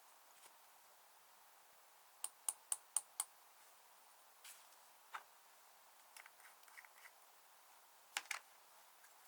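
Small sharp clicks from hands handling slime and makeup: five in quick succession a couple of seconds in, faint crackles scattered after them, and two more clicks near the end, over a quiet background.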